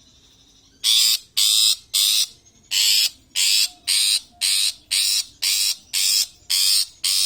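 Long-tailed shrike (cendet) giving a rapid series of loud, harsh, rasping calls, about two a second, beginning about a second in.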